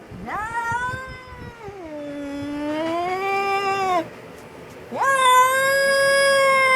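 Angry domestic cat yowling: one long drawn-out call that dips in pitch partway through and climbs again, then after a short pause a second long, steady yowl.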